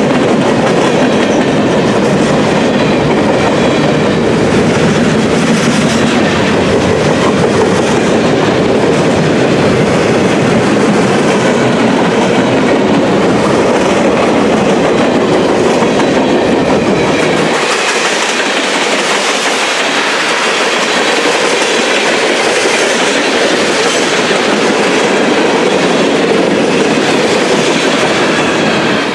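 CSX freight train cars rolling past close by, their steel wheels making a loud, steady noise on the rails. The deep low end of the noise drops away about two-thirds of the way through.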